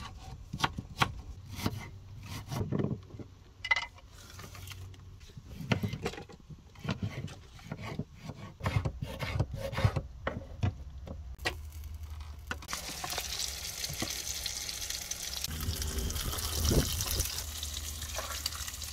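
A kitchen knife chopping vegetables on a wooden cutting board in irregular taps. About two-thirds of the way in, a steady sizzle of food frying in a pan on a gas hob takes over.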